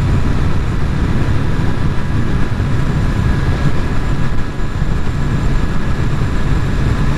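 Motorcycle engine running steadily at highway cruising speed, with wind and road noise.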